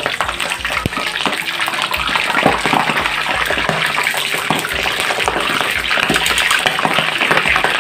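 Boiled pork leg deep-frying in hot oil: a loud, steady sizzle shot through with many sharp crackles and pops as the moisture in the meat spatters in the oil.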